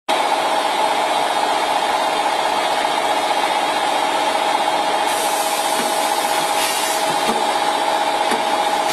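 Automatic rotary premade-pouch packing machine running: a steady mechanical hum with a whine in the middle range, and short hissy bursts about halfway through and near the end.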